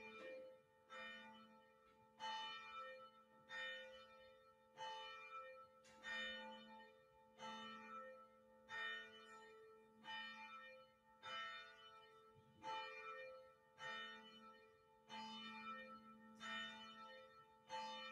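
Church bell ringing faintly, struck about once every 1.2 seconds, each stroke ringing on with several overtones that fade before the next.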